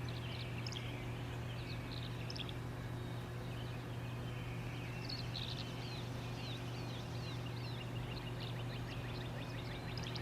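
Tree swallow twittering in runs of short, quick chirps, over a steady low hum.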